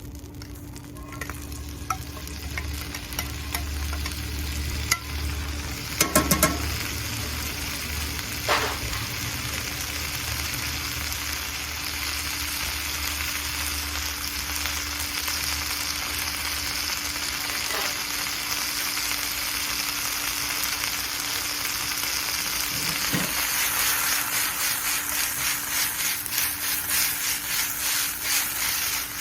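Beef and garlic scapes stir-frying in a pan, sizzling steadily and growing louder. A few sharp clanks come about six seconds in. Near the end there is rhythmic stirring, about three or four strokes a second.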